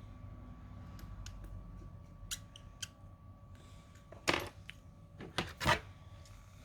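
Small tools and phone parts being handled during a smartphone repair: a few light clicks and taps, then two louder brief noisy sounds a second and a half apart, over a faint steady hum.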